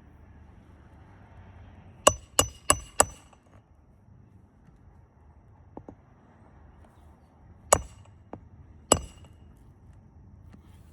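Hammer striking roofing nails through a composition shingle: four quick ringing blows about two seconds in, then two single blows a little over a second apart near the end, with a couple of light taps between.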